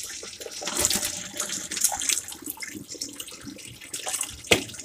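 Hot pasta cooking water poured from a pot through a stainless steel strainer into a steel sink, splashing and draining steadily off the boiled macaroni. A sharp knock sounds near the end.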